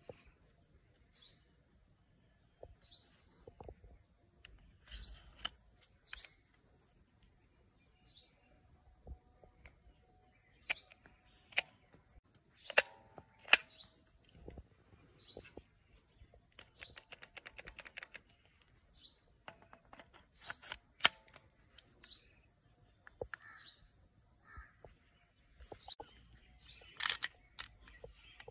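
Sharp metal and polymer clicks from a Glock 43 pistol being handled and its single-stack 9 mm magazine being loaded, rounds pressed in one at a time and snapping into place, with a quick run of small clicks about two-thirds of the way through. A bird chirps briefly every few seconds throughout.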